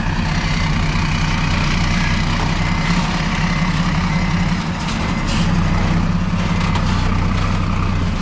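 Heavy diesel truck engine running steadily at low revs.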